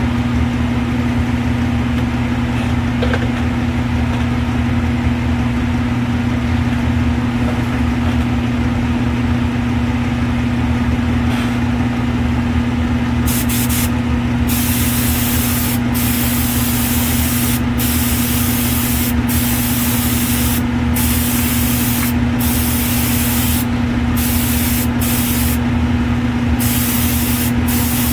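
Spray booth fan's steady low hum throughout. From about halfway in, an airbrush sprays urethane clear coat in about ten short hissing bursts, each around a second long.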